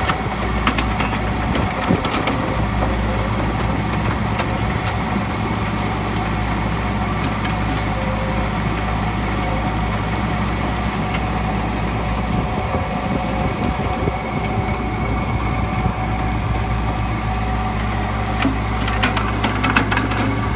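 Herbst Compac mobile soil screener at work: a steady engine drone running throughout, with brief clattering of soil and debris landing on the screen mesh near the start and again near the end.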